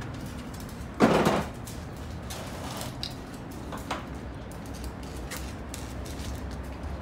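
Handling noise from work at a truck's open clutch housing: a short, loud scraping burst about a second in, then a few light clicks and knocks, over a steady low hum.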